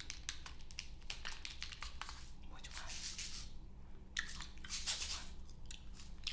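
Gum chewed and smacked close to the microphone: a dense, irregular run of wet mouth clicks and pops, with a couple of brief pauses.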